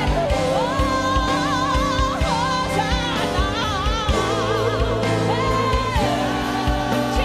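Live gospel worship song: a woman sings long held notes with a wavering vibrato into a microphone, over a band with a bass line and a steady drum beat.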